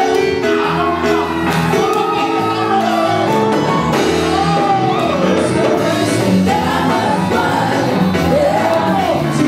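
Live gospel band playing, with a lead vocalist singing long, wavering notes over it.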